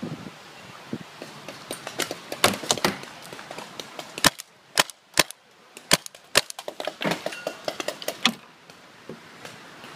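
Paintball markers firing: irregular runs of sharp pops, with several louder single shots in the middle, then the shooting dies away near the end.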